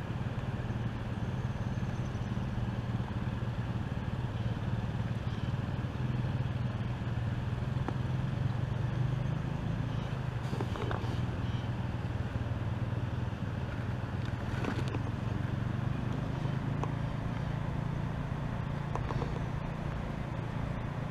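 A steady low rumble, engine-like, with a few faint clicks and knocks.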